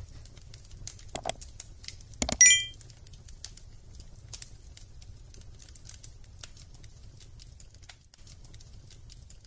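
Crackling fire sound effect: many small crackles over a steady low rumble, with two sharper cracks and, about two and a half seconds in, a short, loud, bright metallic ping.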